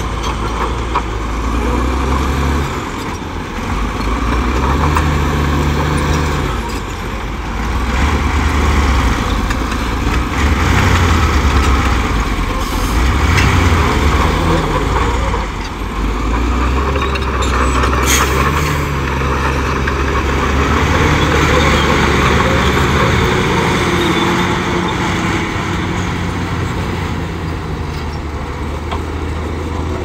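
Heavy diesel earthmoving machinery working, its engine pitch and loudness rising and falling over several seconds at a time as the load changes, with one sharp clank about eighteen seconds in.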